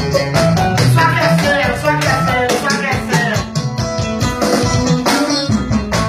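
Live band music: an electronic keyboard and an electric guitar playing an upbeat tune over a quick, steady percussion beat.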